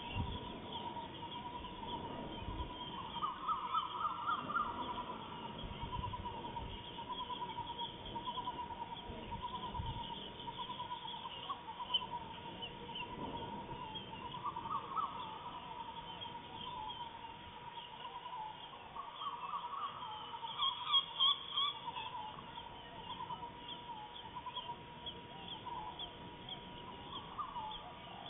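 Forest ambience of birds and insects calling: a steady pulsing trill, with four short bursts of rapid chattering calls.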